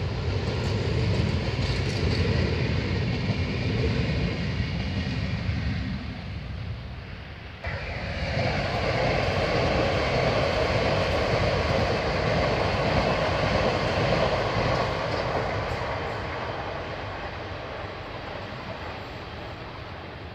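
Renfe electric passenger train running along the track: a heavy low rumble of wheels on rail, changing suddenly about eight seconds in to a higher rushing noise that slowly fades as the train draws away.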